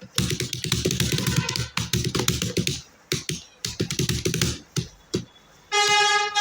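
Fast touch-typing on a computer keyboard, with rapid runs of key clicks and a short pause about three seconds in. Near the end a held musical note starts and sounds over the typing.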